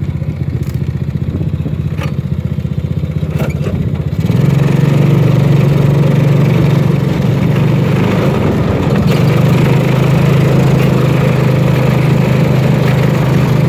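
A small vehicle engine running steadily, rising to a louder, higher-revving run about four seconds in. A few sharp knocks come in the first few seconds.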